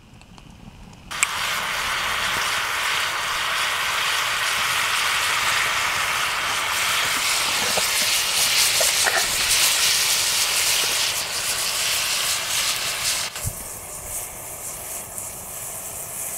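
Bobcat meat frying in a steel pan over a campfire, a loud steady sizzle that starts suddenly about a second in and eases a little near the end.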